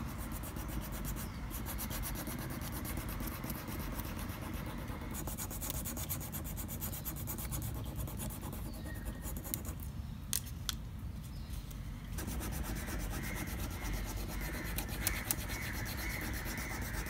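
Fingers rubbing the back of tracing paper laid on a rubber eraser-stamp block, burnishing a pencil drawing onto the rubber: a continuous scratchy rubbing.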